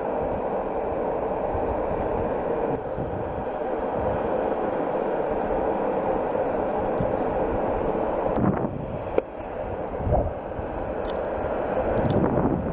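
Longboard wheels rolling fast on asphalt downhill: a steady rumble, with wind on the microphone and a few sharp clicks in the second half.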